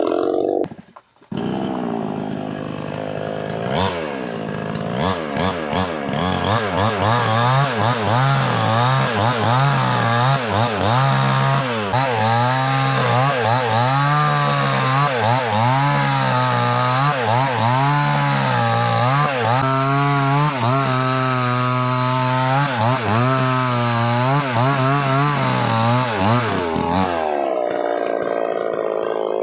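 Small gasoline chainsaw with a 20-inch bar cutting through wood under load. The engine speed keeps rising and dipping, roughly once a second, as the chain bites and clears. It drops briefly about a second in and winds down near the end.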